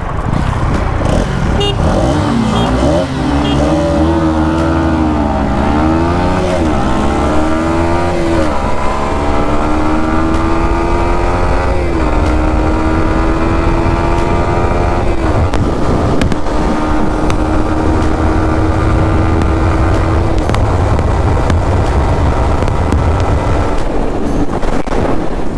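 Yamaha MT-15 v2's 155 cc single-cylinder engine accelerating hard through the gears. The pitch climbs in each gear and drops at every upshift: several quick shifts in the first few seconds, then three longer pulls in the higher gears, settling at a steady pitch near the end.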